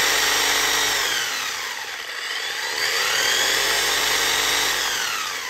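ARRMA Senton 3S short-course RC truck's brushless motor and drivetrain whining as it spins the wheels freely off the ground. The pitch drops about a second and a half in, climbs again as the throttle is opened, and falls near the end as it winds down.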